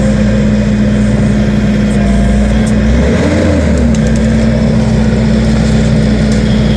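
Skid steer engine running steadily, with a brief rise and fall in its pitch about three seconds in.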